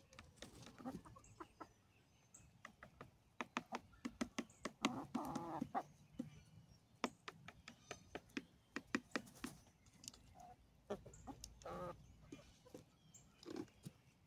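Hens pecking cracked corn off a plastic chair seat: many quick, sharp beak taps, with soft clucking about five seconds in and again near twelve seconds.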